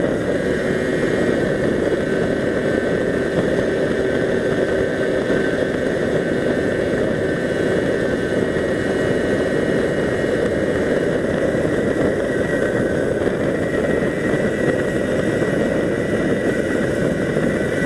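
Steady rushing of wind and road noise from a moving vehicle, picked up by a camera mounted on it, with a faint steady hum under it.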